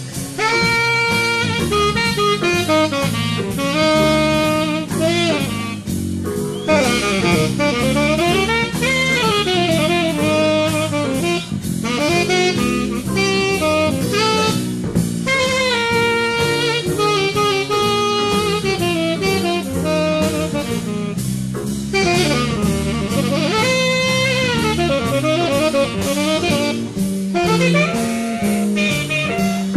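Big band jazz played live: a saxophone leads over drum kit, bass and brass, its line sliding up and down in pitch.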